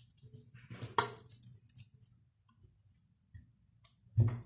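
Pressure cooker being handled: metal clattering, with a sharp clank about a second in and a heavier knock near the end.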